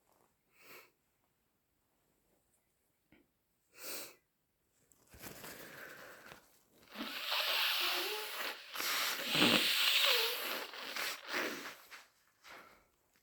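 A person with a cold blowing a congested nose: two short sniffs, then a long wet, snotty blow-out in two hard, drawn-out blasts with brief squeaks of mucus.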